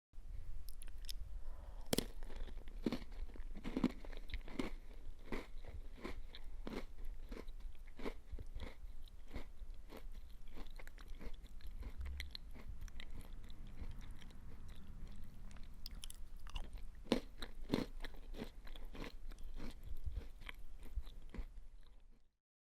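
Close-up of a person biting and chewing a crunchy cookie: a long run of dry crunches and crackles, several a second, with a few louder bites, about two, four and eighteen seconds in.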